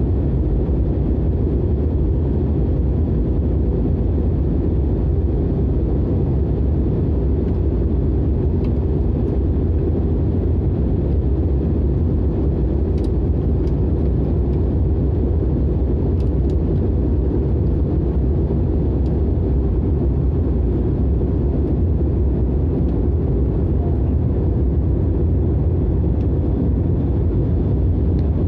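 Steady low rumble of a jet airliner's engines and airflow heard inside the cabin during the descent for landing.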